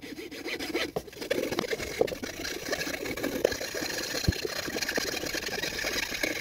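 Small frame hacksaw cutting through a soft wooden batten, a continuous rasping of the blade pushed back and forth.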